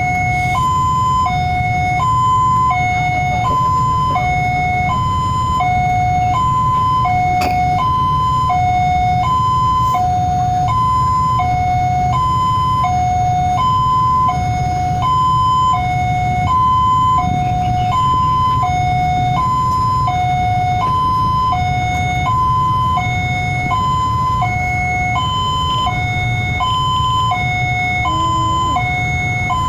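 Electronic level-crossing warning alarm at a railway crossing, sounding a steady two-tone high-low 'ting-tong' that repeats about once every second and a half while the barrier is down, warning that a train is coming. A steady low rumble runs underneath.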